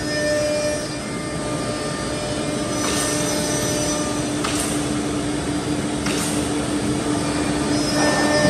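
Holztek HT-R4D four-head CNC router line running: a steady mechanical hum with a held tone, broken three times by short hisses about a second and a half apart.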